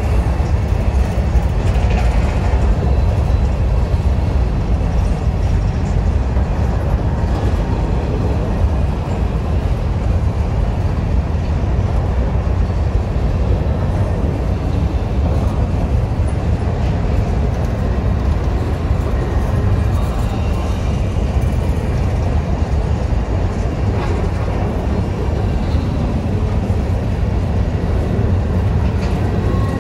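Diesel freight train running with a steady low rumble.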